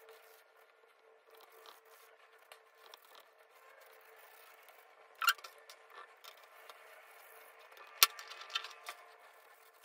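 Faint rustling and scraping of a steel wool scouring pad rubbed over soldering iron parts. A sharp click comes about five seconds in, and a louder sharp knock about eight seconds in as a gloved hand takes hold of the glass beaker.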